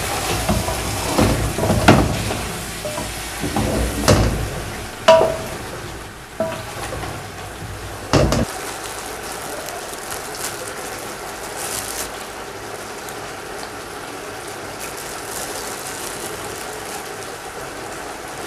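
Wooden spoon stirring meat and potatoes in spice masala in a large aluminium pot, knocking against the pot about five times. About eight seconds in the stirring stops and only the steady sizzle of the masala cooking remains.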